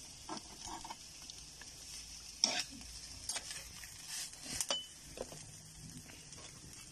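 Metal spatula scraping and knocking against a frying pan while stirring grated coconut as it toasts for bukayo, with a few sharp strokes in the middle over a steady faint hiss.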